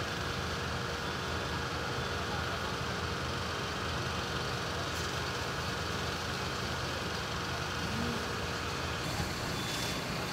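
Fire engines' diesel engines and water pumps running steadily: a low, even drone with a faint constant whine. A brief hiss comes near the end.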